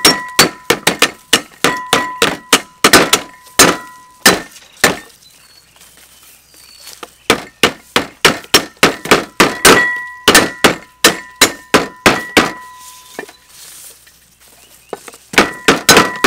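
Steel cleavers chopping lemongrass stalks on wooden chopping boards: rapid chops, several a second, the blades ringing after many strokes. There are two short pauses, one about a third of the way in and one near the end.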